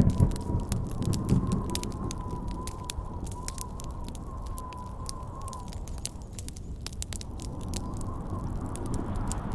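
Campfire crackling and popping, under wind howling in a thin, wavering whistle that dies away about six seconds in and returns faintly near the end. A low rumble of thunder fades out in the first second or two.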